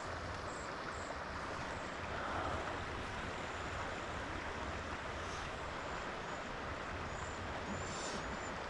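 Steady rush of stream water flowing and dropping into a pool, with a few faint high chirps above it.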